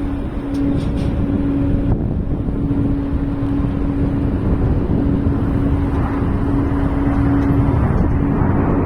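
Boeing 777 jet engines at takeoff thrust: a loud, steady rumble with a steady droning tone running through it.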